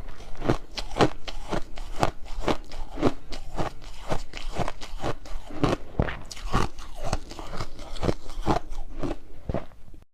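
Ice being bitten and chewed close to the microphone: a steady run of crisp crunches, about two a second.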